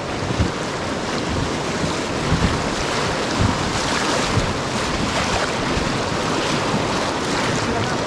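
Rough river water rushing and slapping against an inflatable raft in choppy waves, with a paddle splashing into the water and wind buffeting the microphone.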